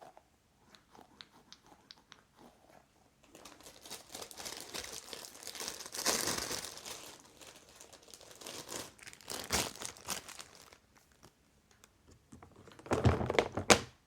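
Crinkling and rustling handling noise, faint at first and louder from a few seconds in, with a louder burst near the end.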